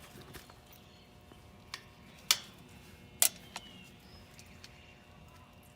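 Faint steady electrical buzz of the Goodman condensing unit's energized contactor, with two sharp clicks a little past two and three seconds in and a few lighter ticks.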